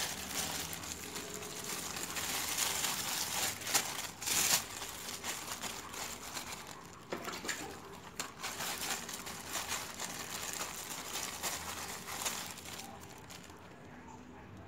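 Plastic bag crinkling and rustling as hands squeeze and shape raw meatball dough inside it, dense and irregular at first and thinning out near the end.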